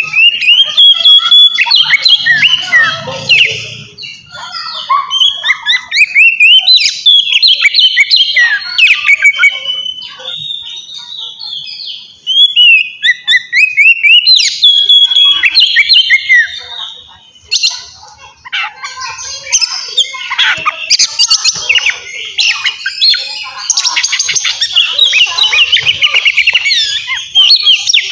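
Oriental magpie-robin singing a loud, varied song of clear whistles and rapid chattering runs, broken by a few short pauses. The denser, harsher phrases come in the last third.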